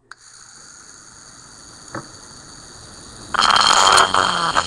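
Lego Power Functions electric motor running with a steady high whine. About three and a half seconds in, a much louder rattling clatter of the plastic mixer parts joins it, with a few sharp clicks near the end.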